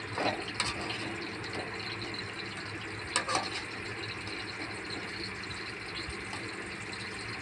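A wire strainer clinks and scrapes against a kadhai as fried brinjal, tomatoes and garlic are lifted out of the hot oil, twice early on and more loudly about three seconds in. Under it runs a steady hiss from the hot oil and the gas stove.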